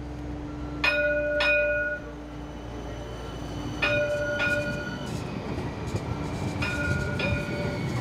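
Streetcar warning bell sounding a double ding-ding three times, about three seconds apart, each strike ringing on briefly, over a steady low rumble.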